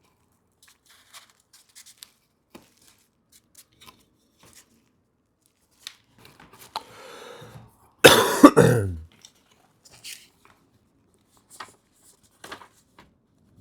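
Scattered light taps and handling clicks of paper and packaging, then a loud cough about eight seconds in, followed by a few more taps.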